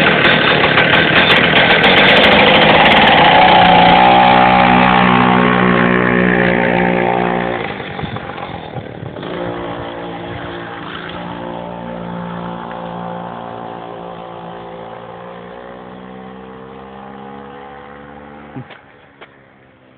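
Homemade scooter's two-stroke chainsaw engine revving hard close by for about seven seconds, then dropping off sharply and fading gradually as the scooter pulls away.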